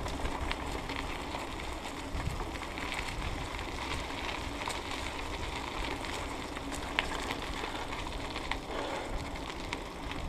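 Bicycle tyres rolling along a leaf-strewn trail, a steady rushing rustle with a low rumble, with scattered small clicks and rattles from the bike, one sharper tick about seven seconds in.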